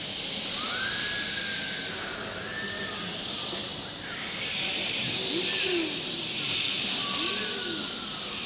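A group of people making breathy, hissing air sounds with their mouths on a soundpainting conductor's cue, the hiss swelling and fading several times, with a few faint sliding pitched tones mixed in.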